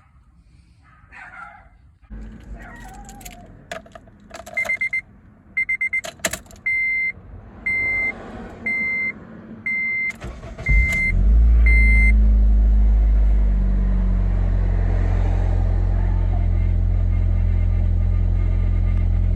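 Keys rattle and the ignition of a 2007 Honda Civic's 1.8-litre four-cylinder is switched on, with the dash warning chime beeping about once a second. The engine cranks and starts with a brief flare of revs, then settles to a steady idle on its first start after an EGR valve replacement.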